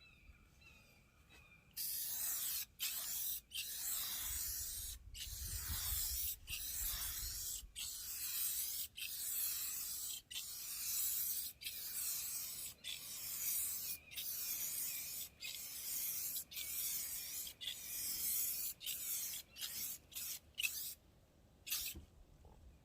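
Aerosol can of clear coat spraying onto a sanded car headlight: a steady hiss in repeated passes, broken by brief pauses about once a second, starting about two seconds in and stopping shortly before the end with one last short spray.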